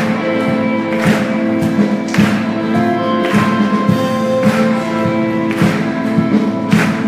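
Worship band playing an instrumental passage: sustained guitar chords with a steady beat, a sharp cymbal-like stroke landing about once a second.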